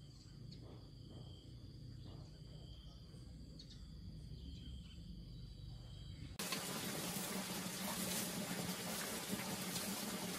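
Insects trilling as thin, steady high tones over a low rumble. About six seconds in, this cuts suddenly to a louder, steady hiss.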